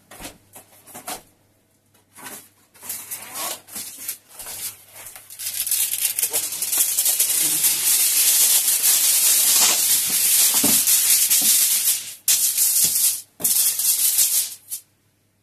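A few light knocks and rustles, then, from about five seconds in, aluminium kitchen foil crinkling and rustling loudly as a sheet is pulled off the roll and spread flat. The crinkling breaks off briefly twice near the end.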